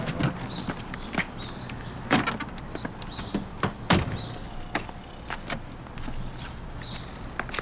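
A car door opening and being shut, with the clicks and knocks of someone climbing out of the car with a briefcase and bags; the sharpest, loudest knock comes about four seconds in. A low steady hum of the street runs underneath.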